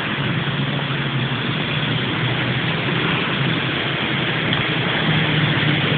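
Steady hum of idling vehicle engines: a low even drone under a constant hiss.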